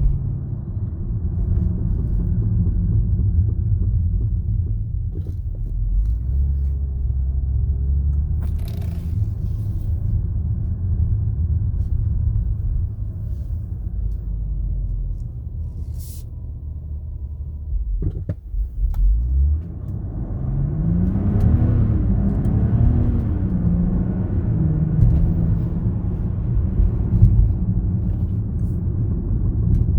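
Range Rover running with a steady low rumble, a few sharp clicks and a rising and falling pitch partway through; the clicking comes from the front left.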